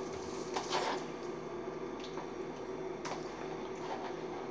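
Quiet kitchen room tone with a steady faint hum and a few light clicks of a spoon against a bowl.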